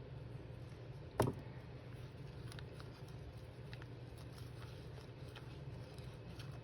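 A single sharp knock about a second in, followed by faint scattered clicks of craft tools and paper being handled on a work table.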